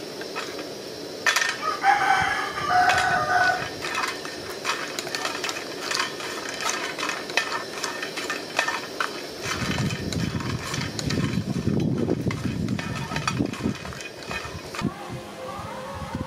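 A rooster crows once, about two seconds in. Light clicks and taps of cinnamon sticks dropping into a nonstick pan and being pushed about with a wooden spatula run through the rest.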